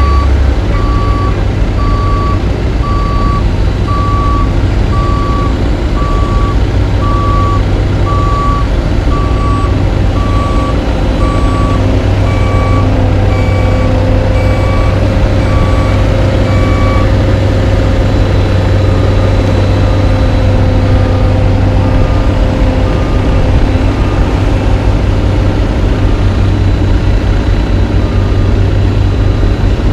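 Diesel asphalt paving machines, a paver and roller compactors, running steadily with back-up alarms beeping about once a second. A second, higher-pitched alarm beeps alongside for a few seconds in the middle.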